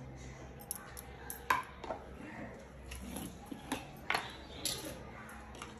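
Spoon and dishes clinking, a string of short, sharp clicks and knocks, as spoonfuls of spice powder are measured out for a mutton marinade.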